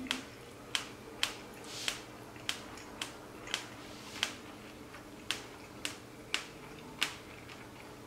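A person chewing a mouthful of bread, making a run of short, sharp mouth clicks at uneven spacing, about one or two a second.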